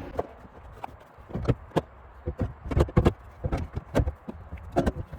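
Irregular knocks and clunks of a Prius's 12-volt battery being tugged up against its compartment as it is pulled out, with the battery catching rather than coming free.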